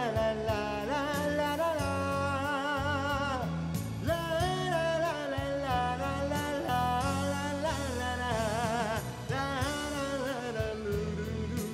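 A man singing a ballad into a karaoke microphone over a backing track, holding long notes with wide vibrato. The voice fades out near the end, leaving the accompaniment playing.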